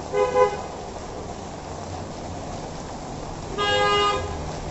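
Car horn honking: two quick toots at the start, then one longer honk about three and a half seconds in, over a steady hiss of rain.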